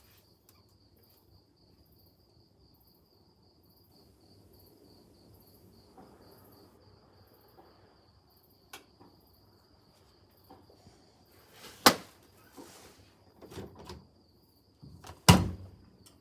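An insect trilling steadily in a high, even pulsing rhythm, with two loud sharp knocks, one about twelve seconds in and one near the end, and a few softer knocks between them.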